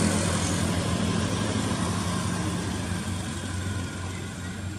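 A road vehicle's engine running with a steady low hum, slowly getting quieter.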